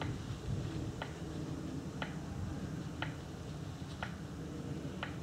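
A race start countdown timer ticking once a second, a short sharp tick each time, over a steady low rumble.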